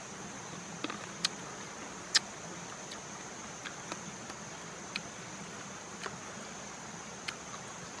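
Steady high-pitched insect drone, with a few scattered sharp clicks over it.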